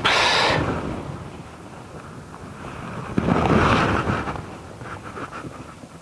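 Two bursts of rustling, scuffing noise, a short one at the start and a longer one about three seconds in, with a low hiss between.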